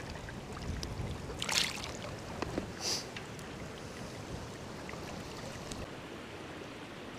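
Steady rush of river current, with two brief splashes about a second and a half and three seconds in.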